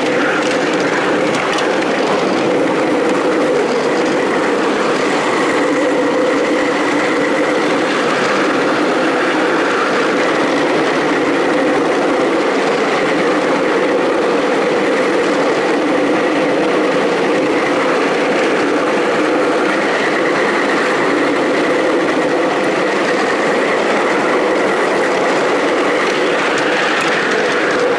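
Ride-on miniature park railway train running steadily along its track: continuous running noise of the locomotive and wheels on the rails, with a higher whine that comes and goes.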